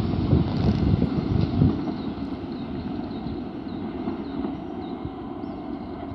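Rumble of an Intercity Night train with an E464 electric locomotive fading as it pulls away down the line. The sound dies down over the first two seconds, leaving a low steady noise.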